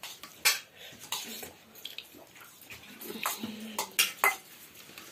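Dishes and eating utensils clinking: a handful of sharp clinks spread out, with three close together about four seconds in.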